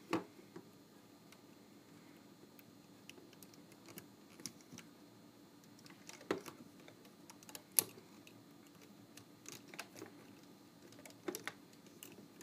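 Scattered light clicks of a plastic hook tool and fingernails knocking against the plastic pegs of a rubber-band loom as rubber bands are hooked and pulled over, the sharpest click about 8 seconds in.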